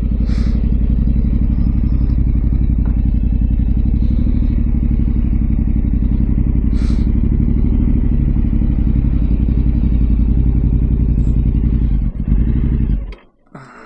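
Motorcycle engine running steadily at low revs, then switched off about thirteen seconds in.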